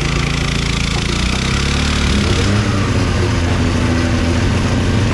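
Motorcycle engine running, its pitch dropping slightly about two seconds in, then idling steadily.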